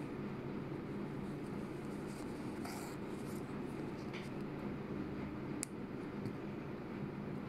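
Soft rustling and small clicks of hand-sewing: a needle and metallic thread drawn through fabric as small pearl beads are stitched on, with one sharp tick a little past the middle. A steady low room hum lies underneath.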